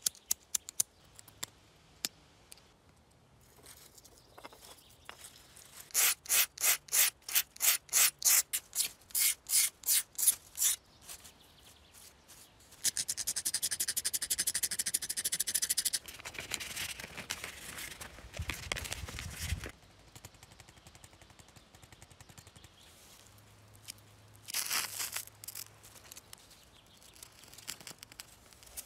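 Broken BIC disposable lighter being scraped and rubbed by hand against paper. A few clicks are followed by about fifteen quick, regular scraping strokes, then several seconds of steady hissing scraping, and one more short scrape later on.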